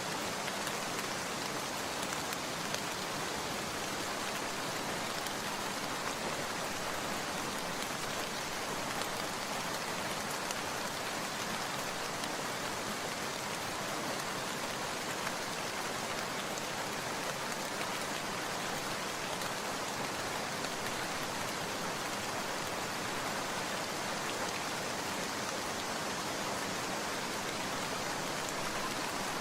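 Steady rain falling, an even hiss of many drops with faint scattered ticks and no change in strength.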